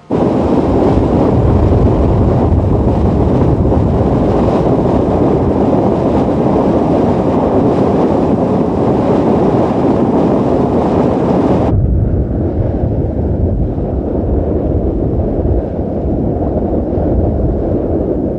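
Steam rushing out of geothermal vents with a steady, deep rushing noise. About twelve seconds in it changes abruptly to a duller, lower rush from a second steaming vent.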